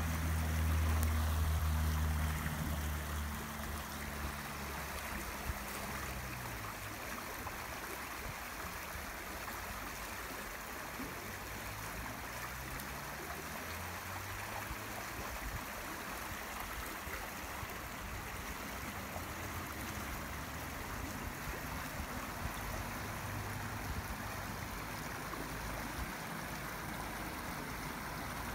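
Shallow stream running over a gravel bed, a steady rush of water. A low drone is loudest for the first few seconds and fades out.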